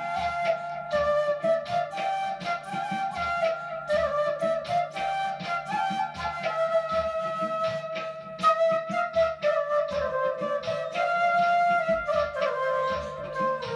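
Side-blown bamboo flute playing a melody that drifts gradually downward in pitch, over a backing track with a steady beat.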